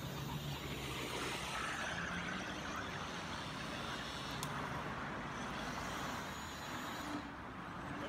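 Radio-controlled model construction trucks running: a steady mechanical whir and hum.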